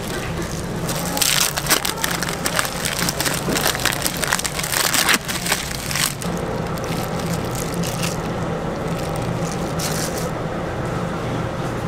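Dense plastic crinkling and rustling as gloved hands pull cheese slices out of a plastic bag, from about a second in until about six seconds in. A steady low hum runs underneath and is left alone once the crinkling stops.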